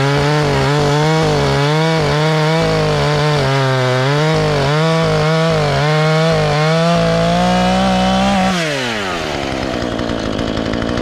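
Chainsaw cutting through a walnut log at full throttle, its engine pitch wavering under load. About seven seconds in, the cut finishes and the engine runs steady and a little higher. Then the throttle is released and the engine falls to idle.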